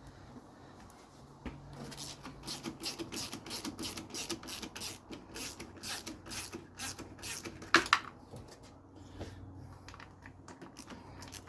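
Rapid, uneven metallic clicking of hand tools at work on the engine mount, with one sharp, ringing metal clack about eight seconds in.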